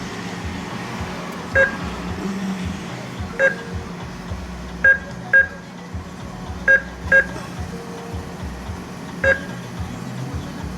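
ATM keypad beeping as keys are pressed: seven short beeps of the same pitch, spaced unevenly.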